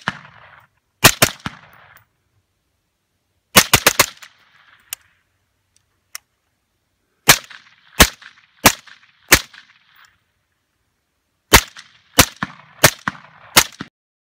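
Suppressed Mark 18 5.56 carbine with a Claymore suppressor mounted on a standard muzzle brake, fired in short strings of two to five shots with pauses between. Each shot is a sharp report with a short echo trailing it.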